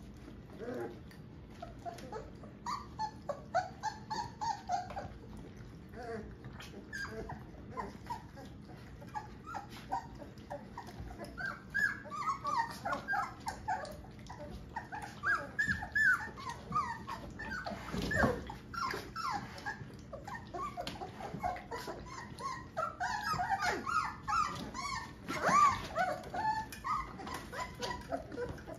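A litter of young Rhodesian Ridgeback puppies whimpering and squeaking while they feed from a shared bowl, with many short high calls overlapping. The calls grow busier after the first ten seconds, and one louder yelp comes about two-thirds of the way in.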